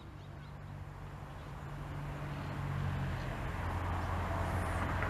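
Diamond DA20-C1 Eclipse light aircraft taxiing, its four-cylinder Continental IO-240 engine and propeller running at low power with a steady low drone that grows louder as it comes closer.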